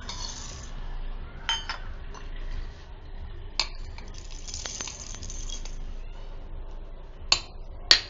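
Whole spices (cloves, then shahi jeera, black peppercorns and nutmeg) poured from a steel bowl and a glass bowl into a stainless steel mixer-grinder jar. The seeds spill and rattle in the jar, with a few sharp clinks of the bowls against the jar rim.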